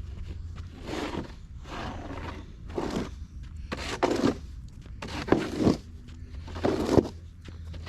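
Footsteps crunching in fresh snow, about one step a second, over a low steady hum.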